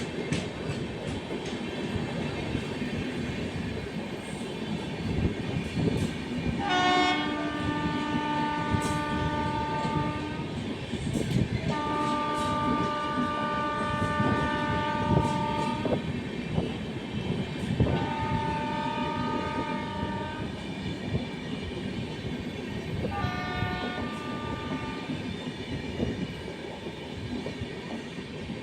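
Indian Railways train running past with a steady rumble and wheel clatter on the rails, its locomotive horn sounding four blasts, the middle one the longest at about four seconds.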